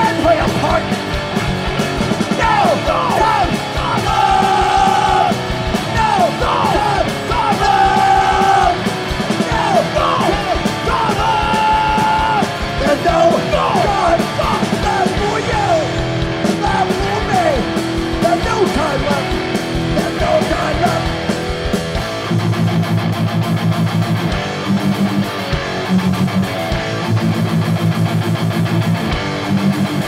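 Hardcore punk band playing live, with distorted guitars, bass and drums under shouted vocals. About two-thirds of the way through, the shouting stops and the music thins to the guitars riffing, with the deepest drum thuds dropping away.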